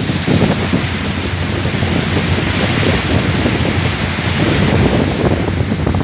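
Wind buffeting the microphone over the rush of the sea and the ship's churning wake, with a steady low hum underneath.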